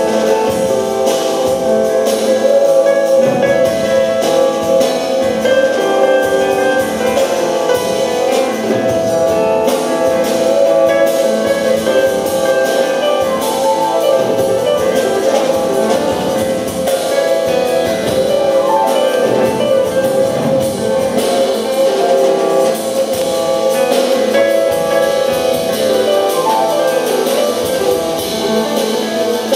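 Live instrumental music: grand piano played with two percussionists on drum kits and assorted percussion, a steady, dense texture with no break.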